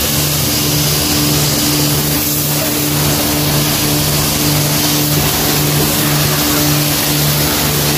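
A car-wash high-pressure washer running: a steady pump hum under the hiss of the water jet spraying onto a person and the wet pavement.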